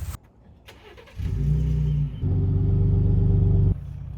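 Vehicle engine droning, heard from inside the cab while driving. After a brief lull it gets much louder and steady for about two and a half seconds, then drops suddenly back to a lower drone.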